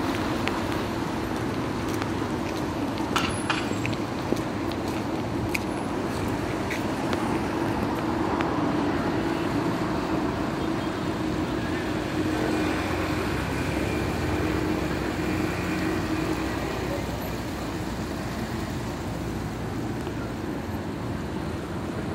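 City street ambience with road traffic on wet streets: a steady wash of vehicle noise, with an engine hum for several seconds in the middle and a few sharp clicks about three to four seconds in.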